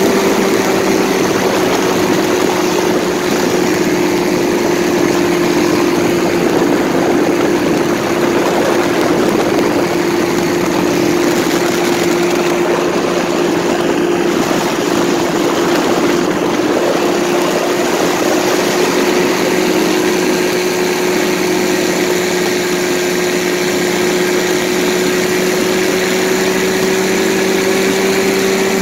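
Paramotor engine and propeller running steadily in flight, a constant loud drone with one strong held tone that sags slightly mid-way and comes back up near the end, mixed with rushing wind.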